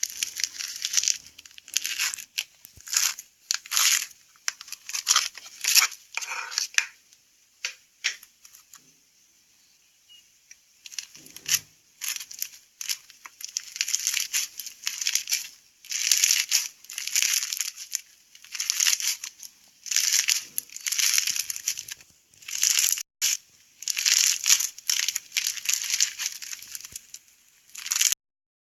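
Slime being squeezed and worked by hand, giving crackly, crinkling sounds in repeated bursts about a second long, with a lull about a third of the way in.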